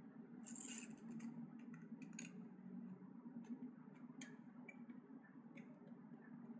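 Faint clicks and rustles of hands handling a LiPo battery, its velcro strap and wires on a quadcopter frame, over a low steady hum. The strongest rustle comes about half a second in.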